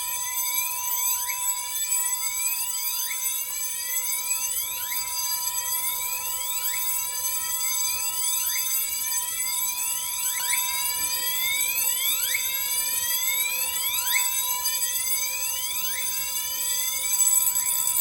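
Fire alarm supervisory bell ringing continuously together with an electronic Alert Commander signal of repeated rising sweeps, about one a second, both set off by the supervisory activation of a duct smoke detector.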